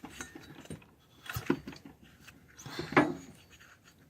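Light metallic clicks and clinks, then two louder short knocks about a second and a half apart, as a small 140 cc Rato RV140 engine that is a little hard to turn is turned over slowly by hand.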